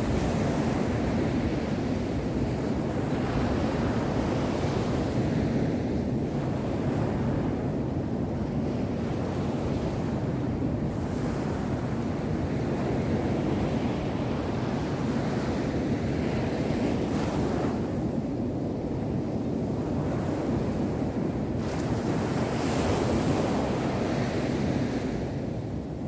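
Small ocean waves breaking and washing up a sandy beach: a steady surf rush that swells and eases as each wave comes in, loudest a little before the end. Wind rumbles on the microphone underneath.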